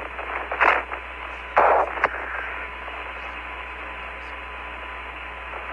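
Hiss of the Apollo 15 air-to-ground radio voice loop, cut off above the voice band, with a faint steady tone under it. Two short loud crackles of static come about half a second and a second and a half in, then the hiss runs on evenly.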